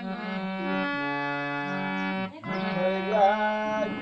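Devotional-style folk song: a reed-like instrument holds sustained chords, breaks off briefly about two seconds in, and an elderly man's singing voice comes in near the end with wavering, ornamented notes.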